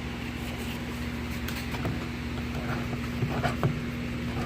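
Light handling noises, soft rubbing and a few faint clicks, as the plastic fire alarm strobe housing is wiped clean, over a steady low hum.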